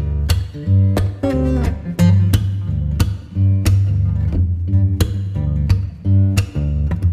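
Music with a plucked guitar over a heavy bass line and a steady beat.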